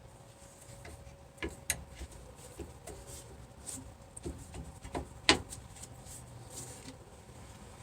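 Scattered light clicks and knocks of tools against metal as a diesel fuel filter housing is worked loose, with a sharper click about 1.5 s, 1.7 s and 5.3 s in.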